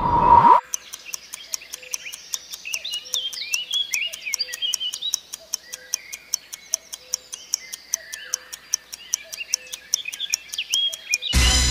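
Countdown-timer clock ticking, about four ticks a second, over a bed of chirping birdsong. A short rising whoosh opens it, and a brass music sting comes in near the end.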